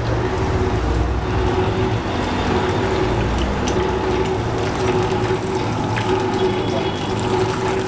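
Chicken pieces deep-frying in hot oil: a steady sizzle, with a steady hum underneath.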